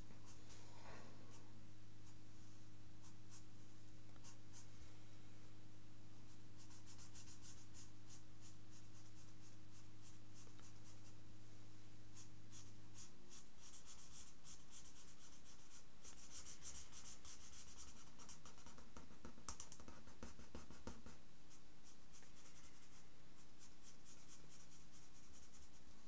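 A felt-tip marker drawing on paper: runs of short, quick strokes as lines are inked in, with pauses between the runs.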